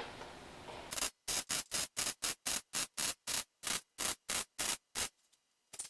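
Wire-feed (MIG) welder arc crackling in short stitch pulses, about three or four a second, while a hole in thin sheet steel is filled against a copper backing bar. The pulses start about a second in, stop about five seconds in, and one last short one comes near the end.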